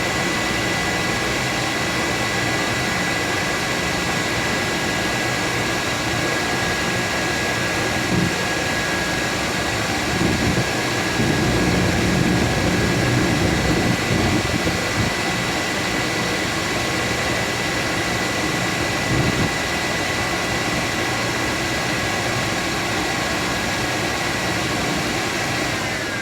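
Surface grinder running: the spindle and aluminum oxide wheel give a steady high whine over a loud hiss as the rouge- and wax-charged wheel makes a final finishing pass over the part. The noise grows louder for a few seconds midway, and the whine starts to fall at the very end as the spindle winds down.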